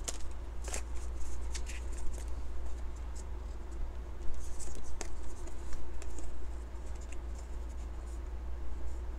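Tarot cards being handled: a few sharp snaps of the deck being shuffled in the first couple of seconds, then softer sliding, rustling and tapping of cards on the tabletop as they are laid out and picked up.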